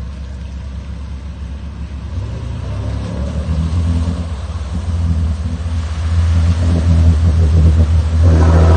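Jeep Grand Cherokee's engine pulling hard as it ploughs through deep puddle water. The engine note grows louder from about two seconds in and stays loud and steady. Water splashes and sprays around it, loudest near the end.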